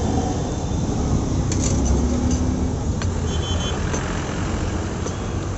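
Road traffic rumble from passing motor vehicles, steady and fairly loud, with a few light clicks over it and a brief high pulsing beep about three seconds in.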